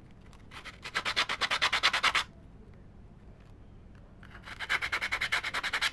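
Sandpaper rubbed by hand over a small carved wooden block in rapid back-and-forth strokes, in two bursts of about a second and a half each, smoothing off the fuzzy torn wood fibres left by milling.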